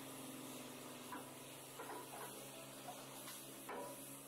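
Faint steady hum of a scrap grapple's hydraulic machinery, with a few light metallic clicks and knocks as the claw is lowered toward a crushed car block.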